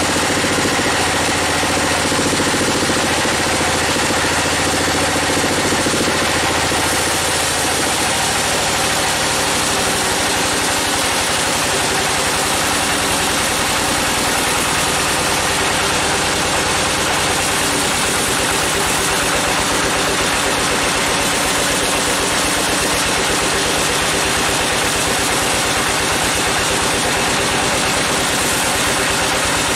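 Band sawmill running steadily, its drive and machinery giving a constant hum and whir. A low, even pulsing starts about twelve seconds in.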